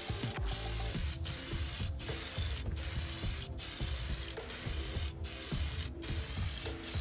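Duratrax aerosol spray-paint can hissing as white paint is sprayed onto a clear RC car body. The spray goes in short passes of under a second each with brief breaks between them, about one a second.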